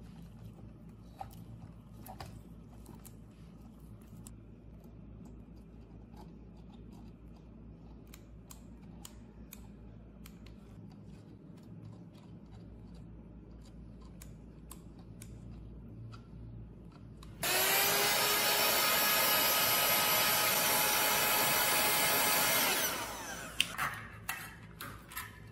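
A small electric blower motor switched on about two-thirds of the way through, spinning up to a steady pitched hum over a rush of air for about five seconds, then switched off and coasting down. Before it, light clicks and rustles of small parts and wires being handled.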